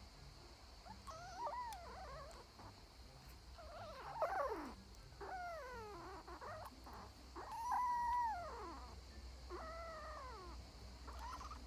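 A pet animal calling about six times in a row, each call drawn out and arching up and then down in pitch, the loudest one near eight seconds in.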